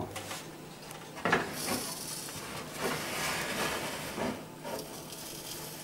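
Metal baking tray being handled and slid onto the rack of an electric tabletop oven: a few light knocks and rubbing over a faint hiss.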